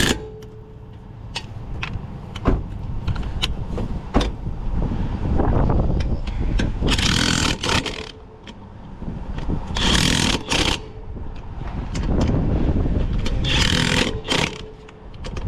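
Impact wrench running in three short bursts about a second each, driving the lug nuts on a spare tire, with scattered clicks of tools and a steady low rumble of wind on the microphone.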